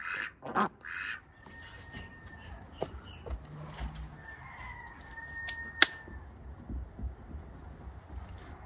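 Domestic ducks quacking, three quick calls in the first second or so. A quieter stretch follows with faint high bird calls and one sharp click about six seconds in.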